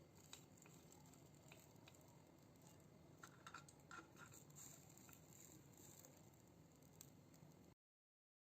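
Near silence: faint room tone with a few soft clicks and taps about halfway through, then dead silence near the end.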